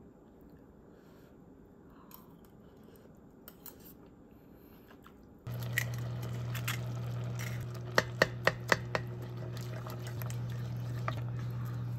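Thick rice porridge bubbling and popping in an enameled cast-iron pot, over a steady low hum that starts suddenly about halfway through. About eight seconds in there is a quick run of five sharp taps, roughly four a second.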